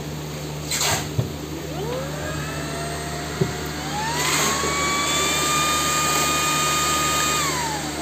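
Xiaomi Mi handheld cordless vacuum cleaner's motor spinning up with a rising whine, stepping up to a higher, steady whine about four seconds in, then winding down with a falling whine near the end.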